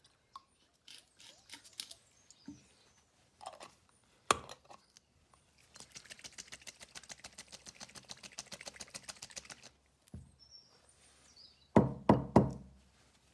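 Scattered knocks and clicks of objects being handled, with a run of rapid, evenly spaced clicks lasting about four seconds in the middle and a cluster of loud knocks near the end.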